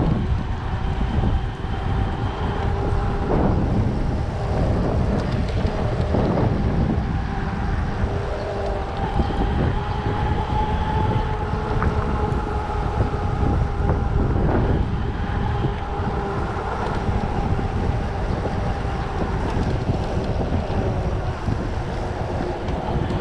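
Wind rushing over the microphone and the steady rumble and rattle of a mountain bike riding downhill on a trail, with faint high tones coming and going.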